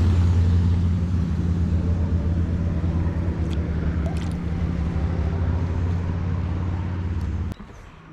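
A steady low engine-like hum, which cuts off suddenly near the end.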